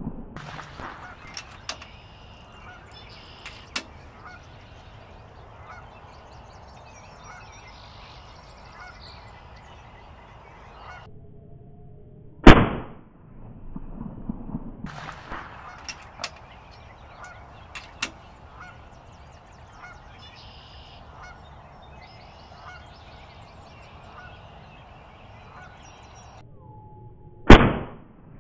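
Two single shots from a PCP air rifle, about fifteen seconds apart, each a sharp crack that dies away quickly. Between the shots there is a quieter steady background with faint repeated honking calls.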